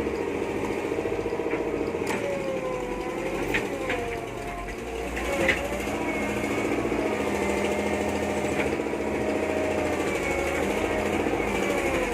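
Diesel engine of a Hitachi UH07 backhoe running steadily with a rapid clatter, its pitch drifting up and down a little, with a few sharp clicks. The machine is being checked for a suspected injection-pump fault.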